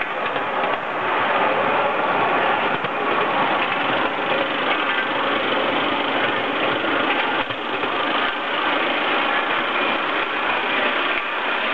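3.5-inch gauge live-steam model of a Great Eastern Railway N7 0-6-2 tank locomotive running at speed, giving a steady, rapid mechanical chatter of exhaust and running gear.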